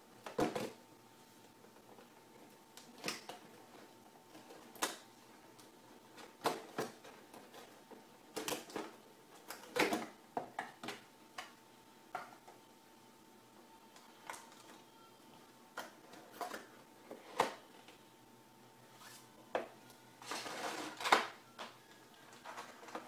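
Cardboard box and clear plastic packaging of a gaming mouse being handled: scattered taps, clicks and crinkles, with a longer plastic rustle near the end.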